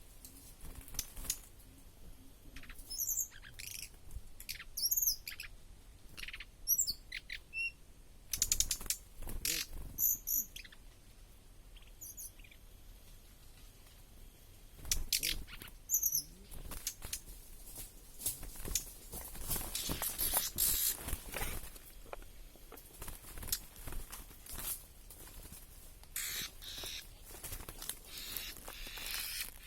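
Short, high, warbling bird chirps in several separate bursts, clustered in the first eight seconds and heard twice more later, among scattered sharp clicks and rustling.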